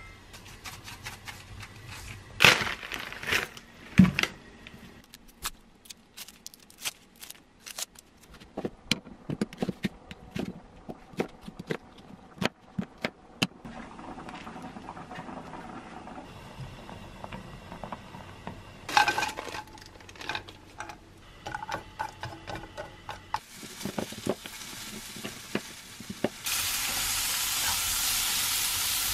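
Kitchen clatter with a run of quick knocks through the middle. About three-quarters of the way through, a pan of shrimp, onion and garlic starts sizzling, loud and steady.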